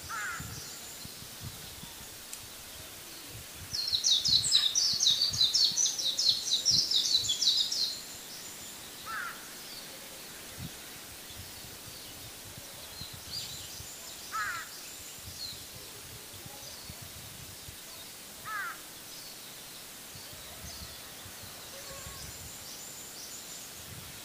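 Outdoor ambience with birds calling. A loud, rapid, high-pitched chatter lasts about four seconds, starting a few seconds in. Short rising calls come now and then, and faint high chirps repeat in the background.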